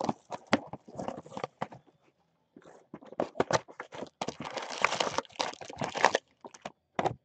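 Hands handling a cardboard trading-card box and its foil-wrapped card packs: scattered taps, clicks and rustles of packaging, with a denser stretch of crinkling about four to six seconds in.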